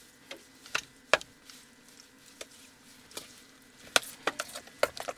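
A spoon stirring a thick ricotta, egg and herb mixture in a bowl, with scattered clicks of the spoon against the bowl that come thicker in the last second or so.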